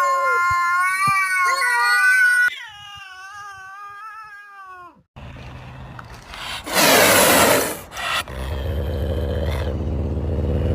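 Angry cat caterwauling: a long, loud, wavering yowl, then a quieter drawn-out yowl. About seven seconds in comes a loud, hoarse hiss, followed by a steady rough noise.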